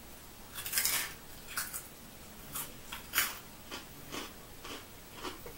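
A person chewing crunchy snack chips: one loud crunch about a second in, then a string of softer crunches roughly every half second.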